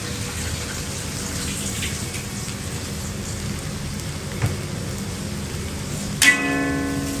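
Food sizzling steadily as it fries, with a single knock about halfway through. Near the end a loud, steady tone starts abruptly and lasts about a second.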